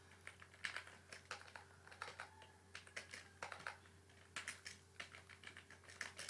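Computer keyboard keys being typed, faint irregular keystroke clicks with a short pause partway through, as a short sentence is typed.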